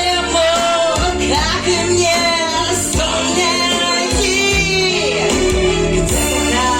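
A woman singing sustained, vibrato-laden notes over an instrumental accompaniment with steady low held notes.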